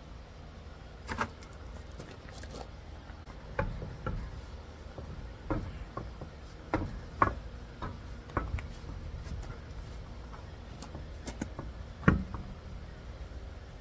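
Irregular clicks and clanks of hand tools and metal brake parts being handled during a brake job, with one louder knock near the end, over a steady low rumble.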